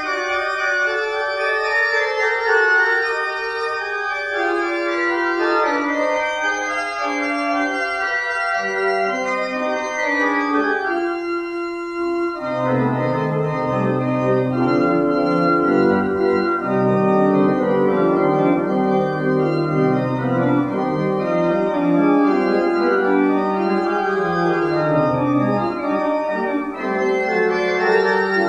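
Organ playing a slow hymn tune in held chords, with no singing. After a short pause a little before twelve seconds in, lower bass notes come in under the chords.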